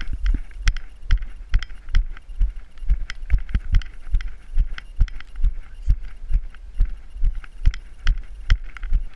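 A person's footsteps along a grassy track, a steady rhythm of a little over two heavy thumps a second as the camera is jolted at each step, over a light rustle.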